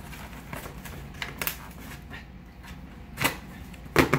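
Boxes and packaging of computer parts being handled: scattered light clicks, taps and rustles, with a sharper knock about three seconds in and another near the end.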